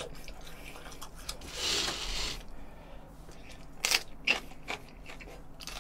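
Close-up eating sounds: a short breathy hiss about two seconds in, then crisp crunches as a raw green pepper is bitten into and chewed, three sharp snaps in quick succession around the four-second mark.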